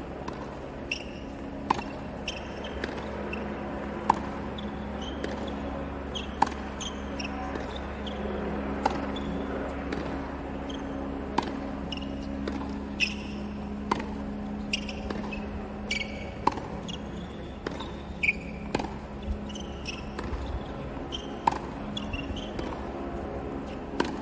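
Tennis balls struck by rackets in a steady baseline rally, a sharp pop about every two and a half seconds with softer ball bounces on the hard court between them, over a steady low hum.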